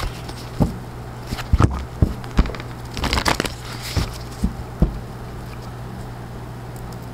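Oracle cards being shuffled and handled: crackly riffling and soft knocks of the deck through the first five seconds, then only a steady low hum.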